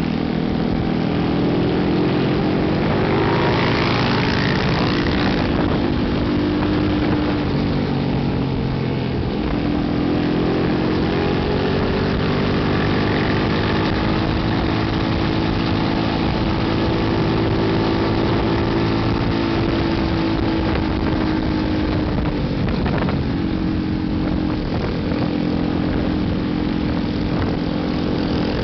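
Small monkey bike engine running steadily on the move, with wind rush. Its pitch dips about nine seconds in and again near 23 seconds, then climbs back as the revs change.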